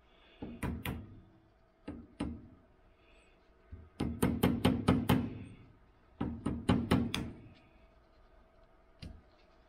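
Light hammer taps driving a small hardwood wedge into a sawn slit in the top of a hammer handle, to lock the head on the handle. The taps come in short runs of two to seven, about five a second in the longest runs, with one lone tap near the end.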